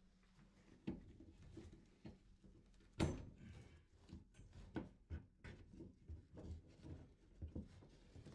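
Irregular light knocks and clicks of copper pipe and fittings being handled and worked into a shower valve inside a wall opening, with one louder knock about three seconds in.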